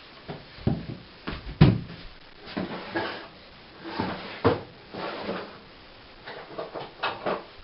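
Handling noise of tools and small grinder parts: irregular knocks, clicks and rattles, with one louder thump about a second and a half in.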